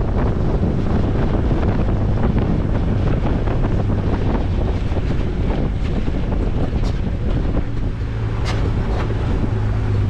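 A 4x4's engine running low and steady with its tyres rolling over a sandy dirt trail, heard from a camera mounted outside the vehicle so wind buffets the microphone. A few sharp clicks come in the second half.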